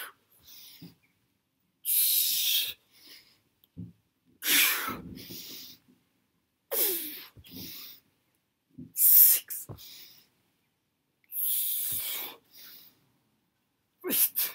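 A man's hard, effortful breathing through a set of TRX suspension-strap chin-ups: a loud blow out about every two and a half seconds, six in all, each followed by a quieter breath in. He is close to muscular failure.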